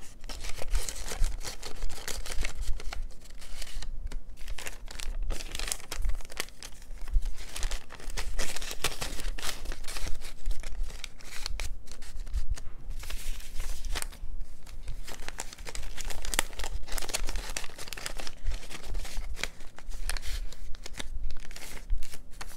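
Paper receipts being handled, folded and tucked into a paper pocket page: irregular rustling and crinkling of paper with many small clicks and taps.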